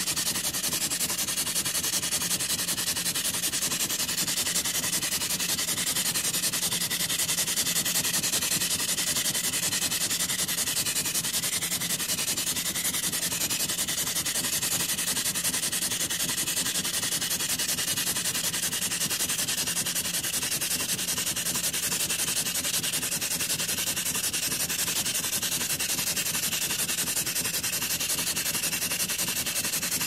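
Steam launch pumping: a steam-driven pump aboard a small steam boat working steadily, giving an even, hissing, rasping run with no pauses.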